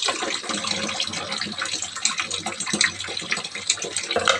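Water running from a kitchen tap and splashing into the sink, a steady hiss full of small splashes that comes on abruptly at the start.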